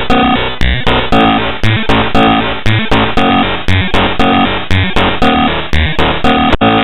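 Loud, harsh synthesized music from a malware program's payload: a looping electronic pattern with a strong beat about twice a second, which switches abruptly to a different steady pattern near the end.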